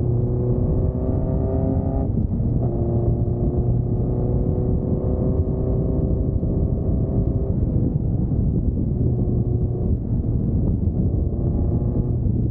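Honda CB1300's inline-four engine accelerating: its pitch climbs, drops suddenly about two seconds in as at an upshift, climbs again, eases off after about seven seconds, and rises once more near the end. The sound is dull and muffled over a low wind and road rumble, as the 360 camera's audio muffles at speeds above about 60 km/h.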